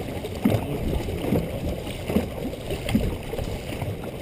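Dragon boat crew's paddles dipping and pulling through the water together, a splash a little more than once a second, over the steady rush of water along the hull.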